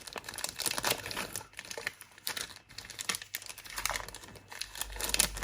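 Irregular small clicks and crinkling rustles of hands handling small parts and tools on an opened cassette walkman.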